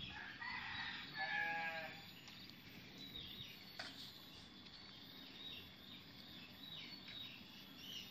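An animal's drawn-out bleat-like call, about a second in, followed by a series of short, high-pitched chirping calls.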